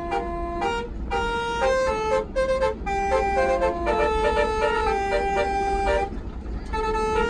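A bus's multi-trumpet 'telolet basuri' air horn playing a quick melody of stepping notes, with a short break about six seconds in. The bus engine and road noise rumble low underneath.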